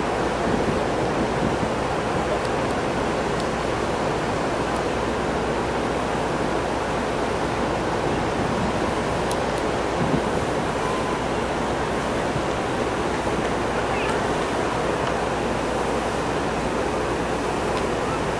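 Steady rushing of wind and water on the deck of a ferry under way, an even noise that holds at one level throughout.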